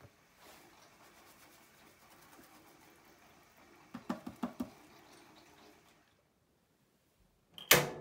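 Hot water running faintly from a filler hose into a vintage Hoover single-tub washing machine's stainless steel tub. About four seconds in, a few short rattles as detergent powder is shaken from its box. Near the end comes a loud single click as the machine's rotary control knob is turned to switch the heater on.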